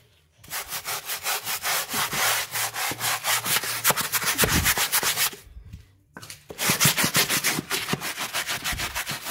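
Stiff wooden-backed scrub brush scrubbing a wet, soapy sink basin in quick back-and-forth strokes, about five a second, with a pause of about a second midway.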